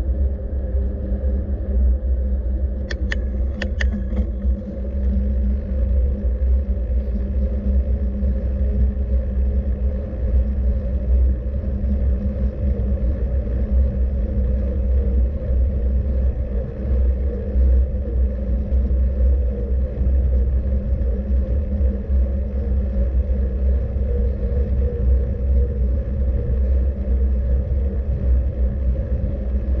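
Steady low rumble of a moving vehicle, with a few short high chirps about three to four seconds in.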